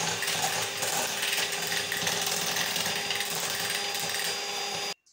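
Electric hand mixer running, its beaters whipping chilled cream in a glass bowl, the cream partway to stiff. The sound is steady and cuts off suddenly near the end.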